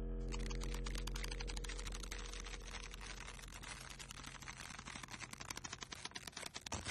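Dot-matrix printer rattling as its print head strikes rapidly, a fast dense chatter that slowly gets quieter, over a low steady hum that fades away in the first few seconds.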